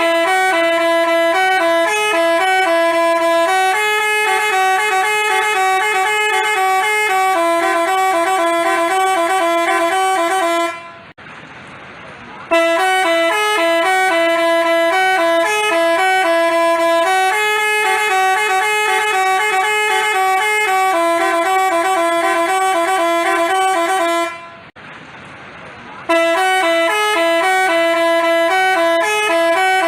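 Telolet basuri multi-tone horn playing a stepping melody. It breaks off twice for about a second and a half and starts the same tune over each time.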